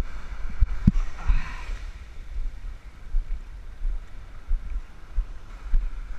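Wind buffeting the action-camera microphone in uneven low gusts, with small waves washing on a sandy shore. Two short knocks come just under a second in, and a wash of surf follows.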